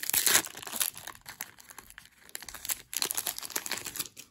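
Wrapper of a trading-card pack crinkling and tearing as it is ripped open by hand: a dense crackle, loudest in the first half second and again about three seconds in, stopping just before the end.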